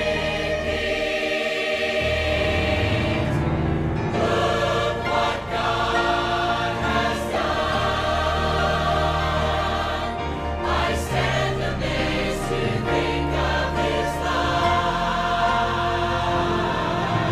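Large mixed church choir of men and women singing a gospel song together.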